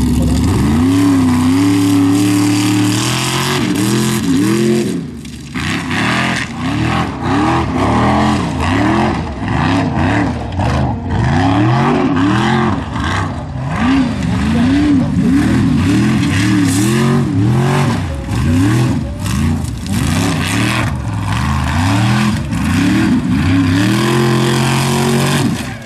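Formula Offroad buggy's engine revving hard, its pitch rising and falling again and again as the throttle is worked while it climbs loose sand and gravel slopes. There is a brief drop in level about five seconds in.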